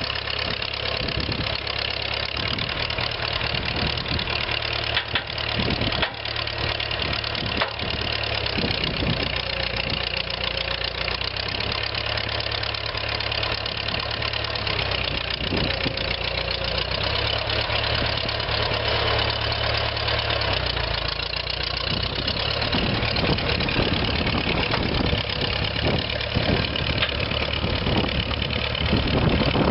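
Massey-Ferguson 85 tractor's Continental four-cylinder gas engine running as the tractor drives and works its loader, with a few brief clunks several seconds in. It gets louder near the end.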